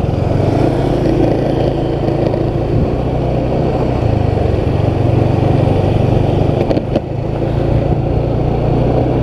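Motorcycle engine running under way, building up at the start and then holding a steady pitch, with a brief drop about seven seconds in.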